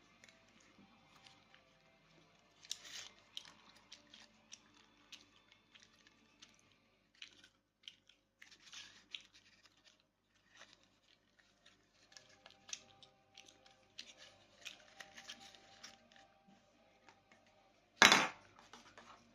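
Scattered rustles and clicks of small plastic toys and packaging being handled, with one loud knock about 18 seconds in.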